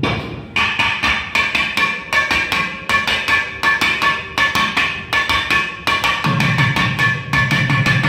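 Thavil drumming in a fast percussion solo: dense, rapid sharp strokes from the stick and the thimbled fingers on the two drum heads. Deeper strokes come in about six seconds in.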